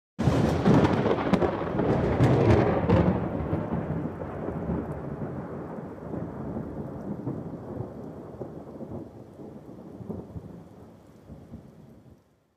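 Thunder sound effect: a loud crackling thunderclap in the first few seconds, then a long rumble that fades away over about ten seconds.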